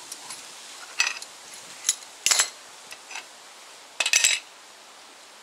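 Metal clinks and clanks of a steel C-clamp and combination wrench being loosened and lifted off a brake caliper, with the old brake pad coming away: a few scattered sharp knocks, the loudest cluster near the end.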